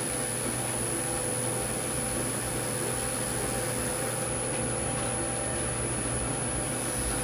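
Wood lathe running steadily at low speed while a cloth pad works a wax friction finish into the spinning goblet; a constant motor hum with a steady tone that sets in about half a second in.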